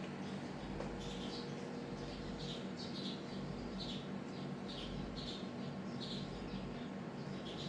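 SMC H56 56-inch industrial ceiling fan running, its motor humming steadily while a short, high squeak repeats about every three-quarters of a second.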